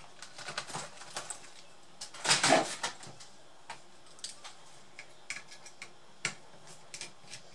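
Light clicks, taps and rustling as hands handle a laptop's copper heatsink-and-fan cooling assembly. There is a louder clatter about two and a half seconds in as the assembly is set down on the work mat, then scattered small clicks of a screwdriver working on the fan.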